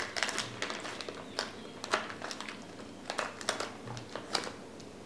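Small plastic gummy-candy packet being handled and crinkled by hand, with irregular crackles and a few sharper clicks.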